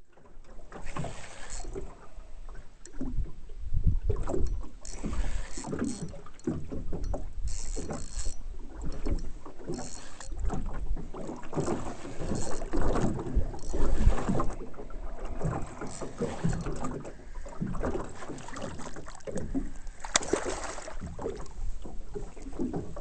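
Wind buffeting the microphone and choppy lake water slapping and lapping against a small boat's hull, in uneven gusts and splashes.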